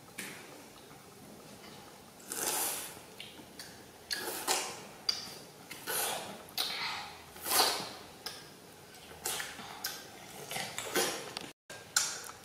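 Close-miked eating of juicy green oranges: a series of short, wet bites and chewing, starting about two seconds in.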